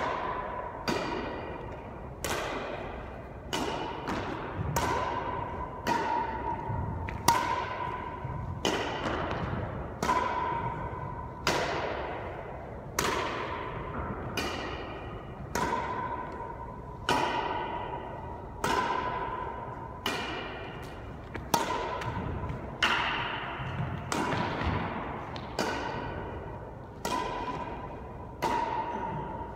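Badminton racket strings hitting a shuttlecock in a rally, a sharp hit a little over once a second, each echoing in a hard-walled court.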